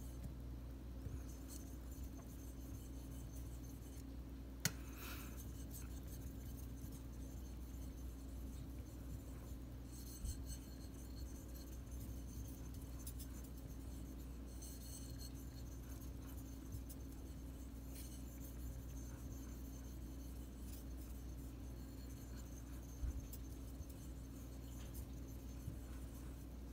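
Steel kitchen knife being stroked across a wet Nakayama maruka Japanese natural sharpening stone: a faint, scratchy scraping that comes and goes with the strokes, over a steady low hum. A single sharp click comes about five seconds in.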